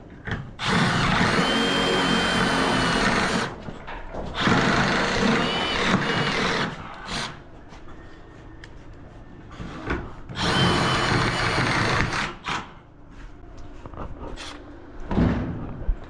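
Power tool cutting steel unistrut channel, running in three spells of two to three seconds each with a faint high whine, with knocks and handling noise in the pauses between cuts.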